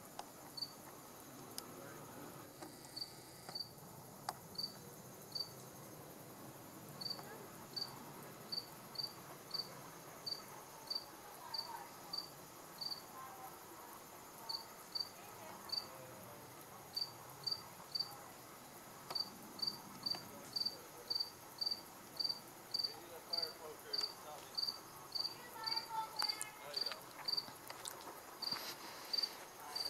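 A cricket chirping: short, high chirps, spaced unevenly at first, then steady at about two a second.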